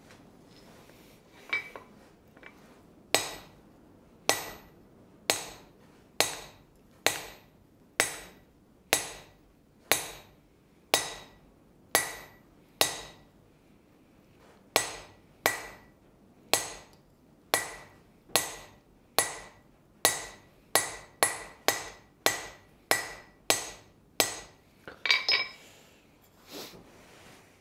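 Hammer blows on a hand-held chisel set into the center line of a hot steel leaf on the anvil, re-cutting the leaf's center vein. The blows come about once a second, each ringing sharply, pause briefly about halfway, then quicken, ending in a short flurry of lighter taps.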